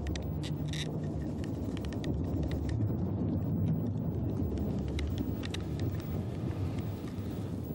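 A wooden fire drill spun between the hands to light tinder, giving light scattered clicks and scrapes, over a steady low rumble like wind.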